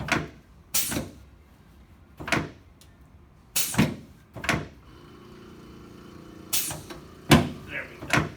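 Sharp knocks and clunks, about eight in irregular succession, from chiropractic adjustments of the sacroiliac joints on the treatment table. A faint steady hum joins about five seconds in.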